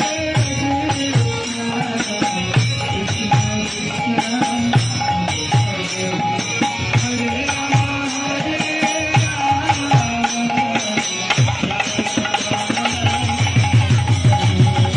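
Harinam kirtan: voices chanting over drums and hand percussion keeping a steady beat, the drum beats growing louder near the end.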